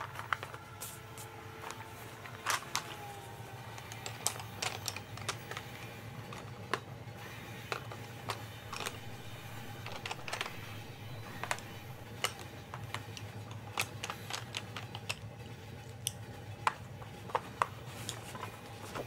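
Coloured pencils clicking and tapping against each other and a metal pencil tin as they are picked out and sorted, in irregular quick clicks, over a steady low rumble.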